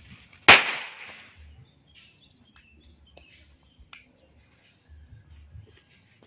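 A single sharp firecracker bang about half a second in, with a short ringing tail, followed by a few faint small pops and ticks.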